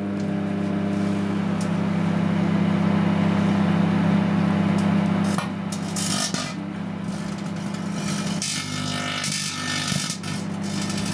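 Microwave oven running with a loud steady mains hum, with a logic board loaded with electrolytic capacitors inside. Bursts of crackling hiss come about six seconds in and again about a second later.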